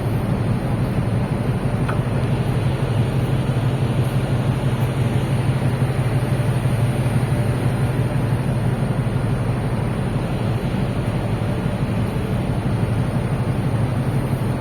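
Ship's engines and machinery running: a steady low rumble with a hiss above it.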